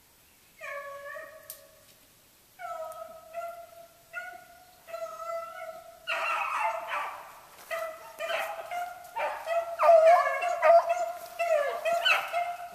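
Beagles baying while running a rabbit's trail: a few separate drawn-out bawls at first, then from about six seconds in several hounds giving voice together, overlapping and louder.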